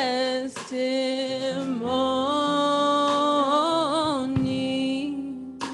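Gospel worship song: a voice sings the drawn-out word 'testimony', holding and bending long notes with vibrato over sustained instrumental accompaniment.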